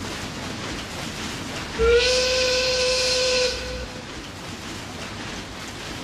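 A steam whistle blowing one steady blast of about two seconds, starting about two seconds in, over a constant hiss.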